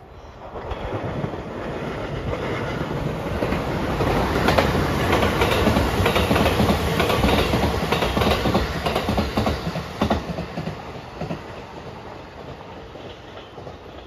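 Rapid Marine Liner electric train passing at speed: a rumble that builds over a few seconds, with wheels clicking over rail joints at its loudest, then fades away as the train recedes.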